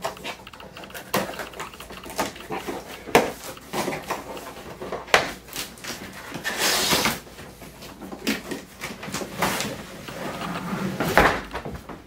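Cardboard shipping box being handled and unpacked: flaps bent back, cardboard rustling and knocking in scattered sharp clicks, with a longer scraping rustle about seven seconds in as an aluminum carrying case is worked out of the box.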